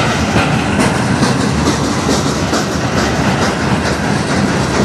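Freight train cars (covered hoppers and tank cars) rolling past: a loud, steady rumble of steel wheels on rail, with a rapid clickety-clack as the wheels cross rail joints.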